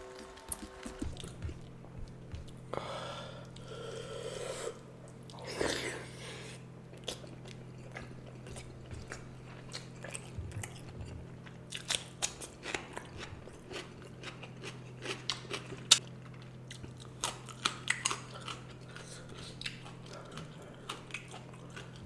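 A person chewing and biting a mouthful of fish curry and rice close to the microphone, with many sharp mouth clicks and two longer noisy stretches about three and six seconds in. A steady low hum runs underneath.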